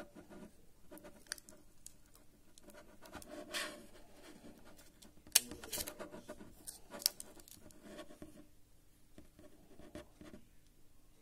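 Fingers handling a smartphone and its plastic screen film: scattered taps, clicks and rustling, with a sharp click about five seconds in and another about seven seconds in.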